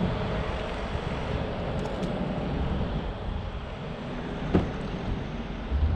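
Wind buffeting the microphone. About four and a half seconds in comes a sharp click as the Audi TT's door handle is pulled, and a low thump follows near the end.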